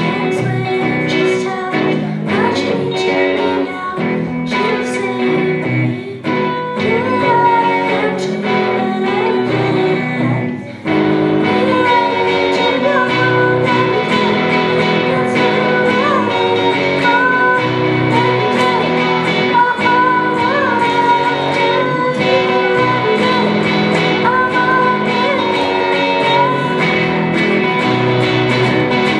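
A boy singing into a microphone while playing a guitar through the stage sound system, a live song performance. About eleven seconds in, the music gets louder and fuller.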